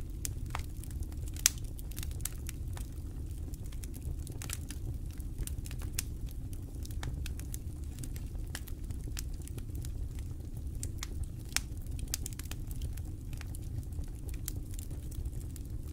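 Campfire crackling: irregular sharp snaps and pops of burning wood, one louder pop about a second and a half in, over a steady low rumble.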